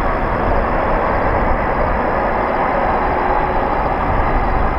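Jet airliner engine noise: a steady, even rumble that neither rises nor falls.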